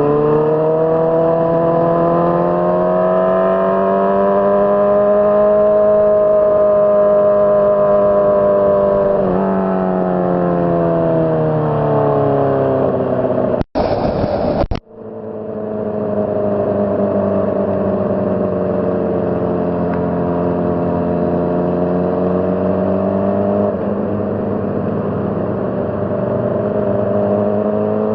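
Honda CBR600RR's inline-four engine running under way, its revs rising and easing off, with a sudden step in pitch about nine seconds in and again about two-thirds through. The sound cuts out briefly about halfway.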